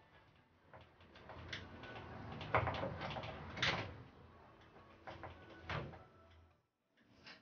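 Hand tool knocking and scraping against the sheet-metal back of an LCD TV panel, with several sharp knocks amid rustling handling noise.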